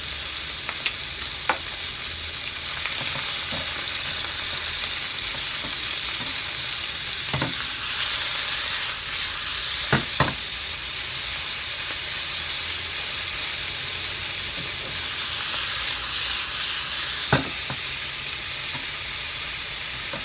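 Thinly sliced beef sizzling steadily as it fries with garlic in oil in a nonstick frying pan. It is being stirred, with a few sharp knocks against the pan, two of them in quick succession about halfway through.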